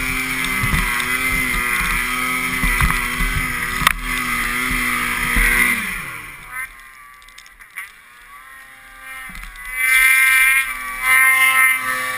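Two-stroke 800 snowmobile engine running hard and steady through deep powder, then winding down about six seconds in as the sled stops. Near the end a snowmobile engine revs up again in two loud bursts.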